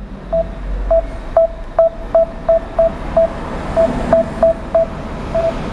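Samsung Galaxy S9 loudspeaker giving a rapid run of about a dozen short, identical beeps at one pitch, unevenly spaced, over a low steady hum. The beeps show that the phone's sound is working again after a reboot.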